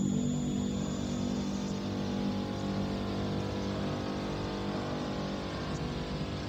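Dense, steady electronic drone from an analog synthesizer and tape-loop soundtrack: many sustained tones layered over a low rumble and hiss, slowly fading.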